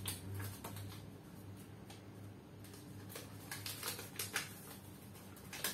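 A folded paper slip being unfolded by hand: faint crinkling and crackling of paper, in scattered bunches that are thickest about three to four and a half seconds in. A low steady hum lies underneath.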